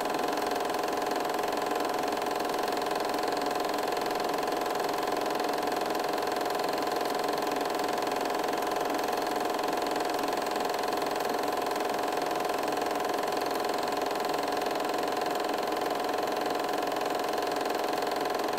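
An 8mm film projector running steadily: a constant mechanical whir with a fixed hum that does not change.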